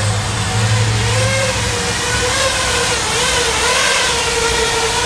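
Emax Buzz FPV quadcopter's motors and propellers buzzing in flight, the pitch rising and falling as the throttle changes.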